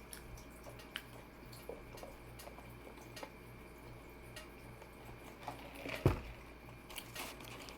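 Close-miked eating sounds of someone chewing a meatball marinara sub: soft, wet mouth clicks and smacks, with one louder thump about six seconds in.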